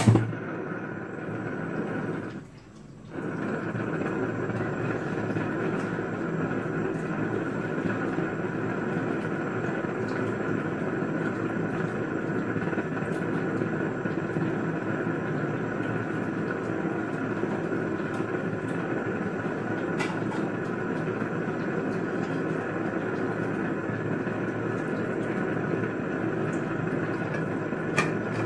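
Gas stove burner running under a steel wok of heating oil: a steady rushing noise that dips briefly about two and a half seconds in.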